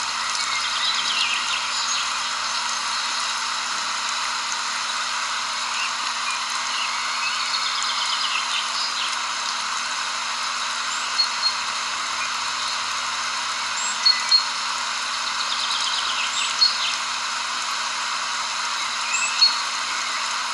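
Birds chirping and calling, short scattered chirps and quick trills, over a steady outdoor hiss.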